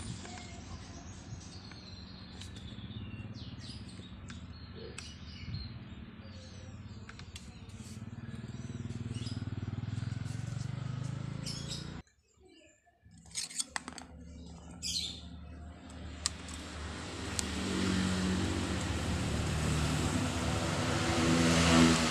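Small birds chirping over a steady low hum of outdoor traffic. About halfway through the sound drops out briefly and a few clicks follow. Then a vehicle engine grows louder toward the end.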